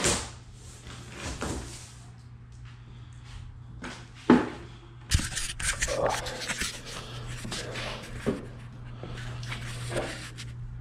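Large cardboard treadmill shipping box being opened with a box cutter: a few knocks, a sharp thump about four seconds in, then scraping and rustling of cardboard and tape.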